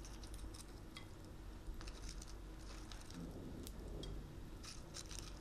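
Whole spices, bay leaf and cinnamon, faintly crackling in hot oil in a pan: scattered small, irregular pops and ticks as they begin to splutter.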